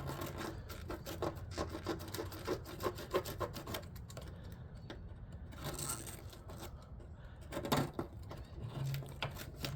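Irregular scraping and rubbing of a metal tool working at a compressor mount sleeve seized by rust in its rubber grommet, with small knocks near the end.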